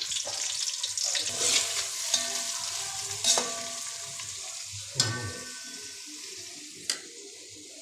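Sliced onions sizzling in hot oil as they are stirred in an aluminium pot. The sizzle eases off after the first few seconds, with three sharp clinks against the pot.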